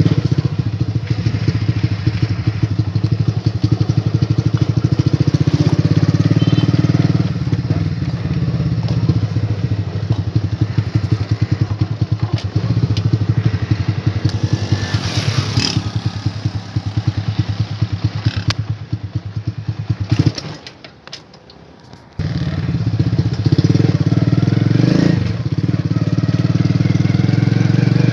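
Motorcycle engine running steadily while the bike is ridden, heard close up from the bike itself. The engine sound drops away for about a second and a half about twenty seconds in, then picks up again.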